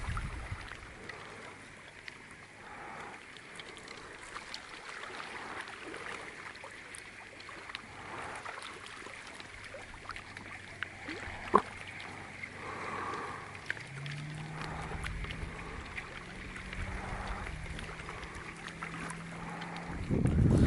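Thin floating ice and slush on a freezing lake crackling and clicking faintly as the water shifts it, with scattered small ticks and one sharper click about halfway through.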